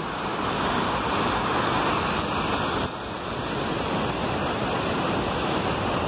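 Steady rushing of a river cascade, water pouring over rock ledges, with a slight dip in level about halfway through.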